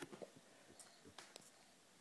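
Faint wet clicks and smacks of a baby sucking and chewing on a mesh fruit feeder holding watermelon: a handful of short clicks in the first second and a half, then near silence.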